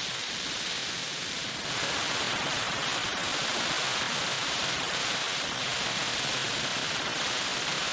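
A steady, even hiss, like rushing air or spray.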